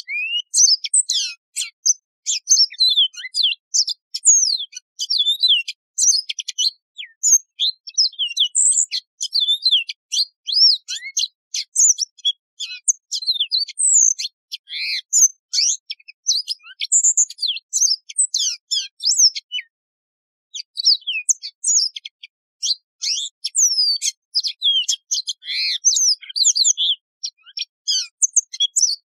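Yellow-fronted canary singing: a long, fast run of varied high sliding notes and trills, with a brief pause about two-thirds of the way through.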